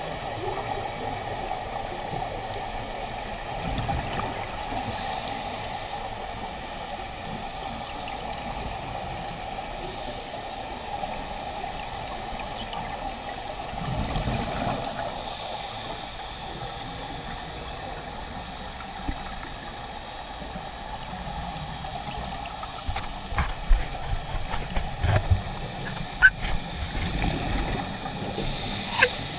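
Muffled underwater sound picked up through a camera's underwater housing: a steady hiss and hum, with a scuba diver's exhaled regulator bubbles rumbling about every ten seconds. A run of sharp clicks and knocks comes in near the end.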